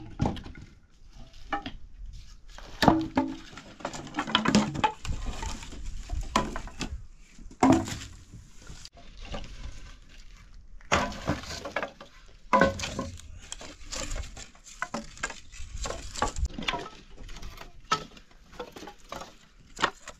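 Irregular knocks and clinks of cooking pots, utensils and wood being handled.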